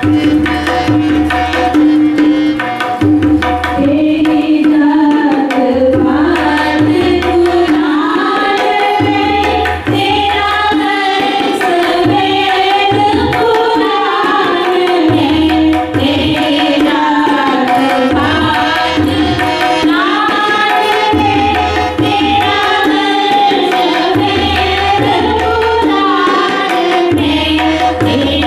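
Hindi devotional bhajan sung live by women to harmonium and tabla. Harmonium and tabla play alone at first, with a held harmonium note, and the singing comes in about four seconds in. The tabla's low bass strokes recur in a steady rhythmic pattern underneath.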